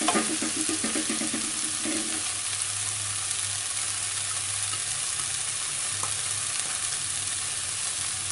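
Shredded cabbage, peas, carrots and capsicum sizzling steadily in a hot non-stick pan as they are stir-fried with a plastic slotted spatula, with the odd light scrape of the spatula.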